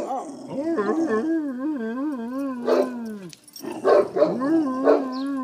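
Saint Bernard puppy howling: two long wavering howls, each sliding down in pitch at its end, with a couple of short sharp yelps in between.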